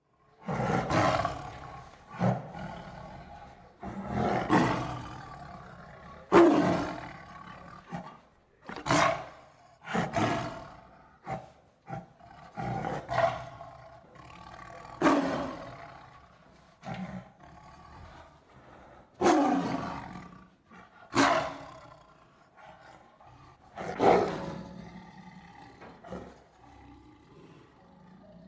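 A big cat roaring repeatedly: a dozen or so loud roars, roughly one every two seconds, each starting sharply and tailing off.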